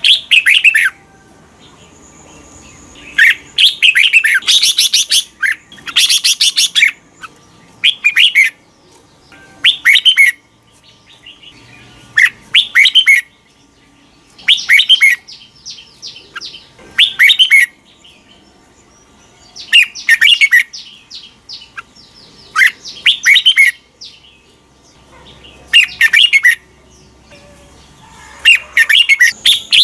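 Red-whiskered bulbul singing: short, loud, warbling phrases, one every two or three seconds, with quiet pauses between.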